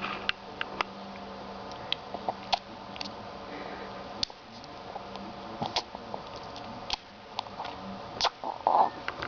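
A baby making mouth noises: irregular, sharp tongue clicks and lip smacks, with a short voiced sound near the end.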